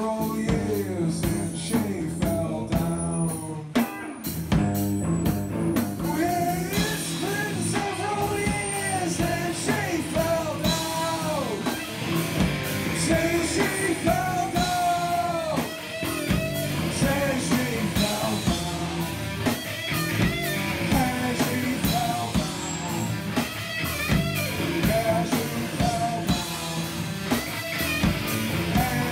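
Rock band playing live: drum kit and electric guitar with a man singing into a microphone.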